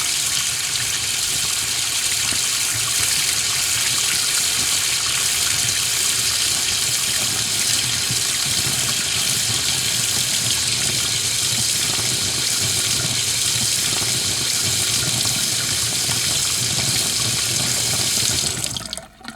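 Kitchen tap running steadily into a sink, the water splashing, until the sound stops abruptly near the end.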